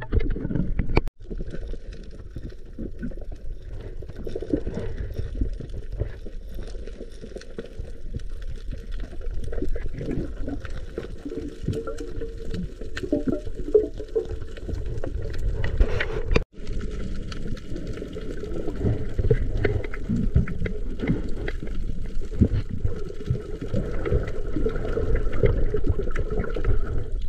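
Muffled water sound heard underwater through a camera housing: a dull churning and gurgling of moving water, cutting out briefly twice.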